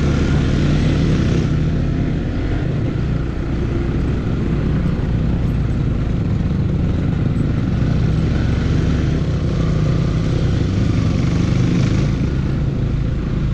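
Motorcycle engine running steadily while riding a dusty off-road track, with a broad rushing noise over the engine hum.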